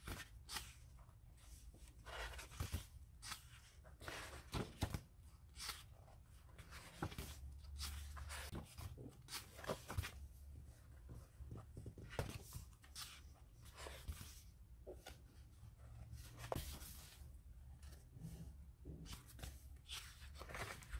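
Pages of a hardcover sticker book being turned one after another: paper swishing and rustling in short, irregular strokes, over a faint low hum.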